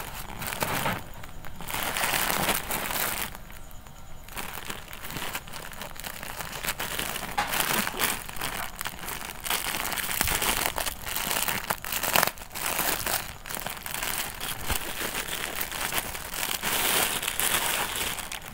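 Clear plastic packaging crinkling and rustling as hands unwrap and handle it. The sound is irregular and crackly, with short lulls about a second in and around four seconds in.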